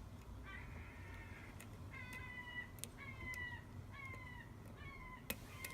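An animal in the background giving about five short, high, slightly falling calls, roughly one a second. Faint sharp ticks from the lock being picked come in between.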